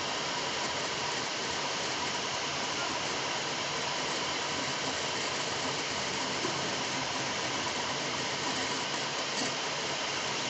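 3D printer running mid-print: a steady whirring hiss from its fans and motors, with a few faint steady tones.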